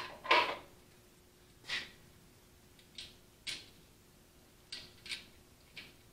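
About seven scattered metallic clinks and clacks, the loudest just after the start, as a Denso-style alternator is worked by hand into its mounting bracket on a tractor engine. A faint steady hum runs underneath.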